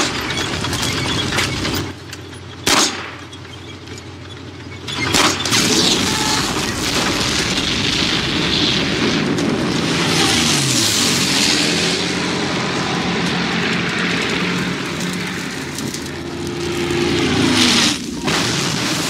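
War-film battle sound: a single pistol shot, then about two seconds later a huge explosion, whose noise runs on as the wreck burns. Near the end, engine sounds glide up and down in pitch, like aircraft passing overhead.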